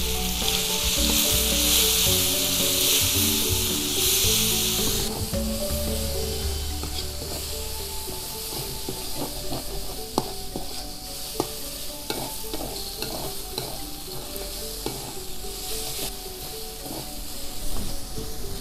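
Chilli spice paste frying in hot oil in a metal wok, with kaffir lime leaves and lemongrass just added: a loud sizzle for the first five seconds or so, then a quieter sizzle. From about six seconds in, a metal spatula scrapes and clicks against the wok as the mixture is stirred.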